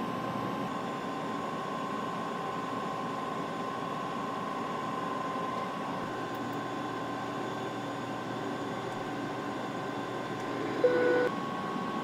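Steady airliner cockpit noise on approach: a constant rush with a steady whine. There is a short electronic beep about eleven seconds in.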